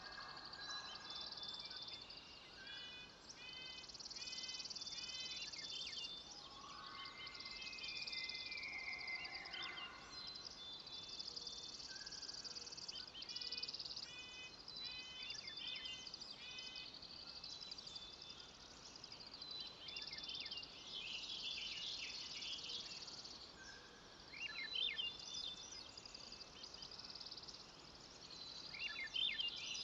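Forest birds singing: repeated runs of short chirping notes and a drawn-out whistled phrase, with quick bursts of chirps, over a high hiss that swells and fades.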